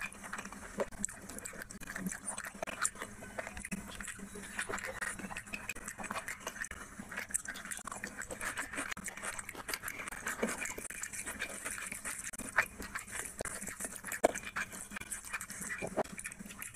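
Close-miked eating by hand: wet chewing and lip-smacking with fingers working through rice and curry, a dense run of irregular clicks and smacks.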